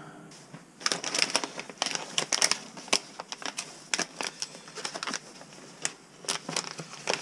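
Plastic packaging crinkling and crackling as hands open and handle it, in short irregular flurries with brief pauses.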